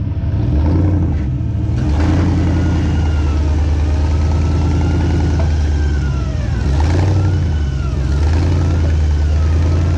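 Off-road vehicle engine running loudly and steadily, with higher whines rising and falling over its deep drone.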